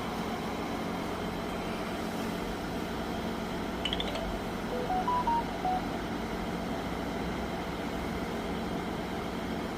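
2024 Audi Q8's engine idling steadily after a smartphone remote start. About four seconds in, a brief chirp followed by a short run of four or five electronic beeps at different pitches.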